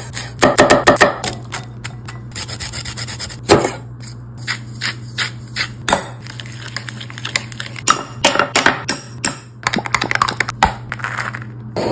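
Kitchen prep sounds: a knife chopping a jalapeño on a wooden cutting board in a quick run of taps, then a spoon scraping and mixing diced vegetables in a glass bowl, then a utensil stirring and scraping sauce in a small glass jar. A steady low hum runs underneath.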